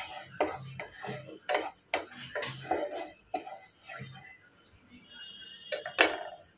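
Wooden spatula stirring hot oil in a non-stick kadhai, a quick run of short scraping knocks against the pan, then a quieter stretch and one sharper knock about six seconds in as the spatula is lifted out.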